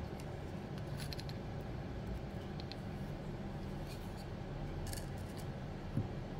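Faint handling sounds of small electronic parts, the aluminium radio case and circuit boards, being picked up and set down on a rubber mat: a few light clicks scattered through and a soft thump near the end, over a steady low hum.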